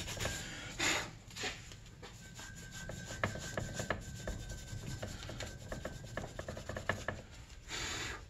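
Gray scouring pad scrubbed by hand over the crankcase half of a 2002 Arctic Cat ZR 800 engine, cleaning it up. A few louder scrubbing strokes about a second in and again near the end, with quieter scratching and small ticks in between.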